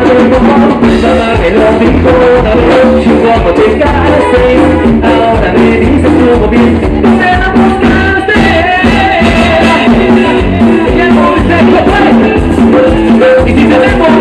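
Live cumbia band playing loud on stage: brass, drums and keyboard under a singer, with a steady dance beat.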